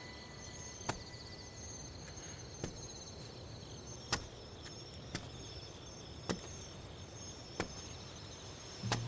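Faint, high insect chirring, with a sharp click every second or so.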